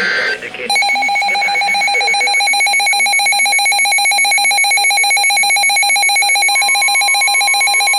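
Emergency Alert System tones: the last of the harsh, screeching SAME data-header bursts in the first half second, then the loud two-tone EAS attention signal, a steady, rough, buzzing alarm tone. About six and a half seconds in, a second steady single tone joins it.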